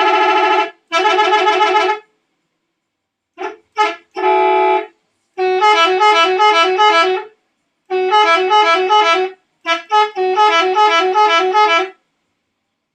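Telolet horn, a multi-trumpet bus horn sequenced to play jingles, sounding in loud bursts with silent pauses between: two short phrases, a few quick blips and a held note, then three longer rippling melodic runs. It stops about a second before the end.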